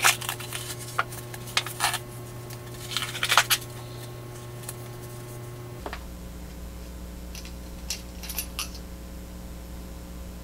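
Hands handling a small box and a metal pen in its tube holder: a run of sharp clicks and light metallic clinks in the first few seconds, then a few fainter clicks about eight seconds in as the pen's lid is unscrewed.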